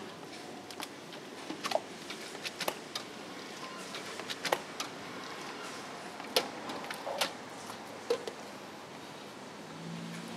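Soft, sticky dough for spring roll wrappers pouring from a metal bowl into a wide metal basin: scattered small clinks and wet squelches over steady background noise.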